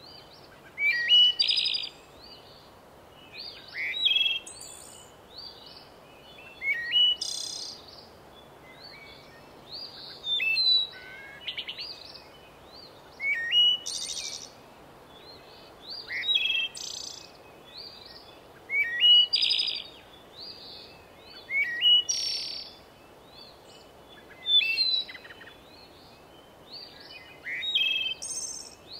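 Songbird singing, repeating a short, high phrase of chirps and trills about every three seconds.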